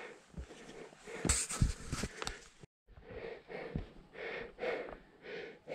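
A hiker's heavy breathing and footsteps on a mountain trail. The sound breaks off briefly about halfway through, then goes on as a run of short, rhythmic puffs of breath.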